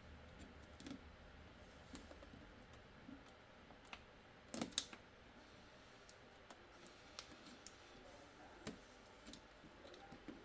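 Faint, scattered small clicks and taps of laptop parts and tools being handled during disassembly, with a louder cluster of two or three clicks near the middle.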